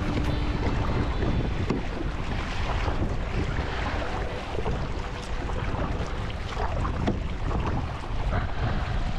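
Wind rumbling on the microphone, over water with irregular small splashes and lapping.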